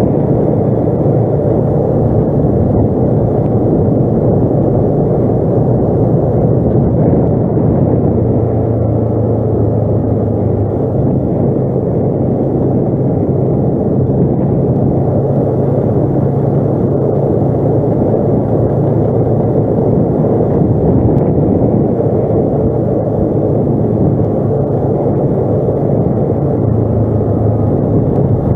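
ATV engine running steadily under way, a dense rumble whose low hum shifts slightly in pitch every few seconds as the throttle changes.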